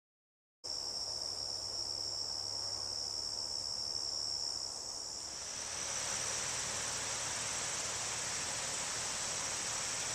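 Insects chirring in a steady, high, unbroken trill, starting about half a second in. After about five seconds a steady hiss joins it.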